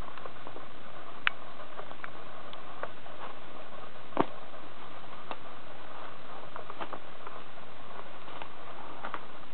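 A beagle mouthing and chewing a shiny plush fish toy: scattered soft clicks and rustles, the sharpest a little past four seconds in, over a steady hiss.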